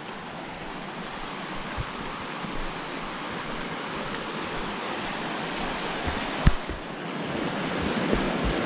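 Steady rushing of running water, growing gradually louder, with a few dull knocks and a sharp click about six and a half seconds in.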